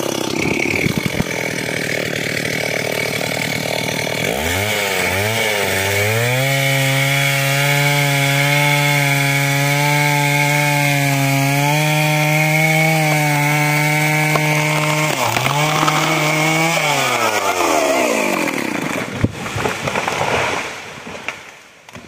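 Stihl chainsaw revving up to full throttle about four seconds in and running hard in a cut through a tree trunk. Its pitch dips briefly once, then falls off as the throttle is released, and the sound fades near the end.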